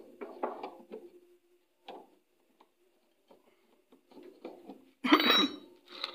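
Metal parts and hand tools clinking and scraping during work on a washing machine's gearbox pulley, with a loud metallic clank about five seconds in that rings briefly.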